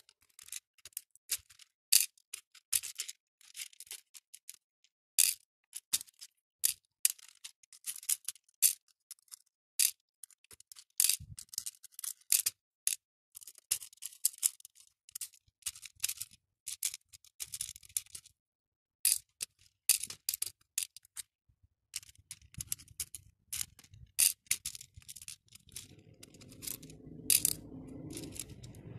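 Small acrylic beads clicking as fingers pick them up and drop them into the compartments of clear plastic bead trays: quick, irregular sharp clicks and taps. A faint low rumble builds in the last few seconds.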